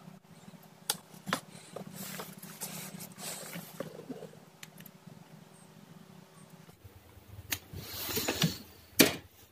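Small clicks and scrapes of a soldering iron and a spring-loaded desoldering pump working on a circuit board, with a sharp loud snap near the end as the pump fires. A low steady hum runs underneath until about two-thirds of the way through.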